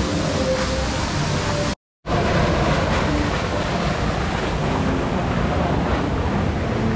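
Steady rushing and splashing of water in a hot-spring pool, with a small waterfall pouring into the pool. The sound cuts out for a split second about two seconds in, then resumes.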